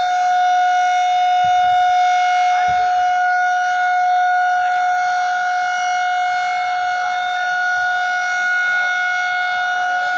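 Dam warning siren sounding one steady, unwavering tone, the alarm that is given while the spillway gates are open and releasing water.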